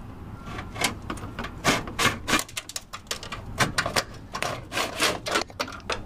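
Fuel door release cable of a Nissan 350Z being pulled out through the footwell trim, scraping and clicking irregularly against the plastic panels and body.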